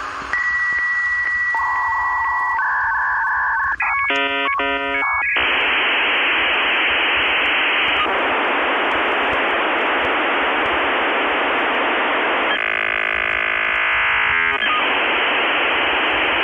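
Telephone-band electronic outro of an electronic dance track: a few steady beeps like a phone line, then a pulsing chord-like warble, then steady radio-like static hiss for about ten seconds, with a humming tone laid over it briefly near the end.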